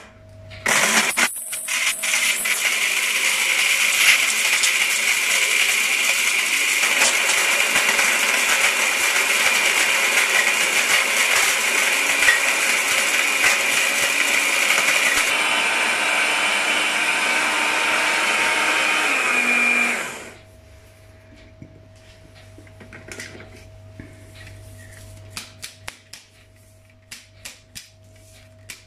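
Small electric blender with a grinding jar pulverising roasted whole spices (cumin, coriander, black pepper, cinnamon) into garam masala powder: a short pulse, then a loud steady run of about twenty seconds, the motor hum sinking as it switches off. Afterwards, light clicks and knocks as the jar is twisted off the base.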